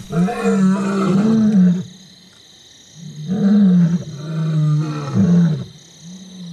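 Lion roaring: two long, deep roars, the second beginning about three seconds in and breaking into shorter calls, with a weaker call near the end.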